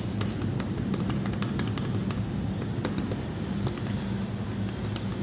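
A run of quick clicks and taps as an LG elevator's hall call button is pressed again and again, with most of them in the first three seconds. A steady low background rumble runs underneath.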